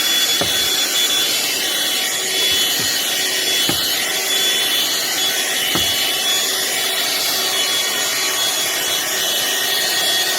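Black & Decker cordless handheld vacuum running steadily, its motor giving a high whine, while its nozzle is scrubbed and scraped back and forth over stair carpet, with brief rubbing strokes every second or two.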